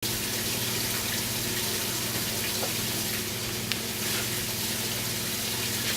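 Steady background hiss with a low, even hum underneath and a couple of faint clicks; no gunshots.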